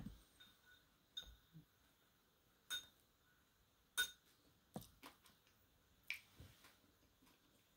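A bamboo tea scoop clicking against ceramic as matcha is scooped from the caddy into the tea bowl. There are about half a dozen light, separate taps, each with a short ring. The sharpest tap, about four seconds in, is the scoop knocking on the bowl's rim.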